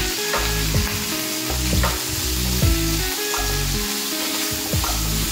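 Masala paste and curry leaves sizzling in hot oil in a frying pan while being stirred with a wooden spatula. Background music with a changing bass line and regular beats plays over it.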